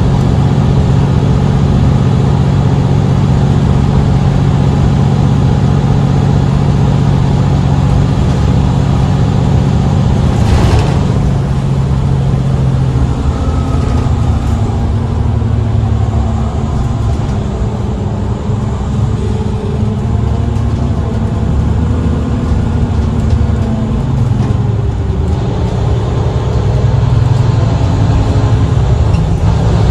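Mercedes-Benz Citaro C2 city bus engine running under way: a steady drone for about the first twelve seconds, then a shifting engine note that builds again near the end. A short hiss comes about ten seconds in.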